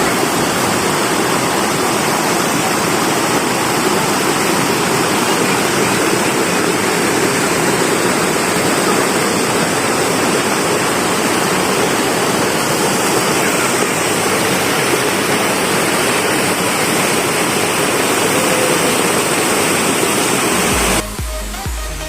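Waterfall: a steady, loud rush of falling water, cutting off abruptly about a second before the end as background music takes over.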